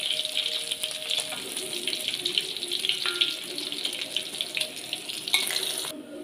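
Tenggiri (Spanish mackerel) pieces frying in hot oil in an aluminium wok: a steady crackling sizzle with a few clicks of the spatula against the pan. The sizzle cuts off suddenly near the end.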